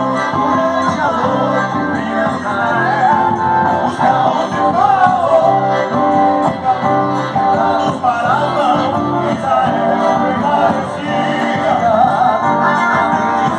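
Portuguese gospel song playing: a wavering sung melody over instrumental accompaniment with a repeating bass line.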